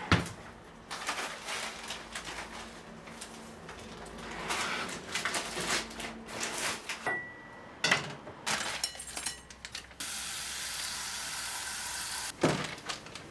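Kitchen handling sounds: a plastic bag of dried rice noodles rustling and crinkling, with knocks and clicks on the counter and a short beep a little past halfway. Near the end comes about two seconds of steady hiss, cut off by a knock.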